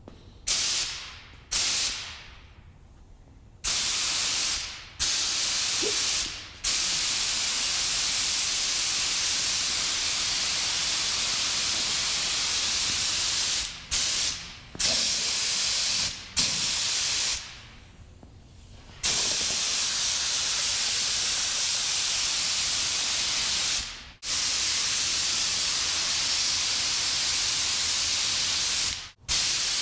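Typhoon Pro compressed-air blow gun blasting air with a loud hiss, in a series of short bursts at first and then long steady blasts with brief breaks, as the trigger is pulled and released to blow the shop clean.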